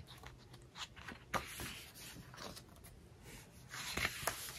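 Photobook pages being turned gently: soft paper rustles, with a light tick and swish about a second and a half in and another swish near the end.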